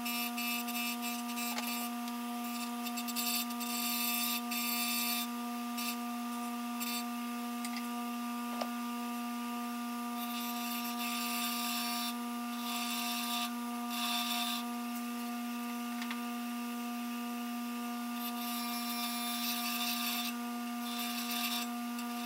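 Bench grinder motor running with a steady hum, while a steel screw held in pliers is pressed against the grinding wheel in repeated bursts of harsh, hissing grinding, shortening and flattening the screw.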